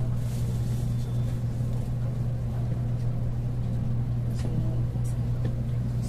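Steady low hum and faint noise of an N700A Shinkansen carriage interior.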